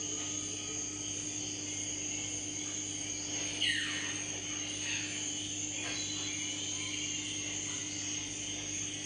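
Steady hum and hiss of a running aquarium filter pump and moving water. About three and a half seconds in, a brief falling whistle sounds once.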